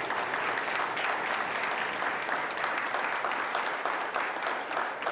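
Applause from many people clapping together, dense and steady, easing off slightly near the end.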